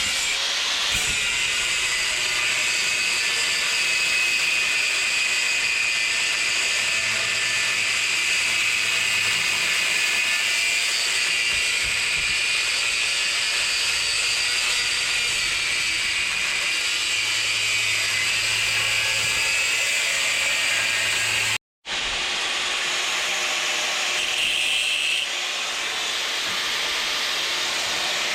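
Welding arc on steel, a steady loud hiss and sizzle. It cuts out briefly at about 22 seconds in and then resumes.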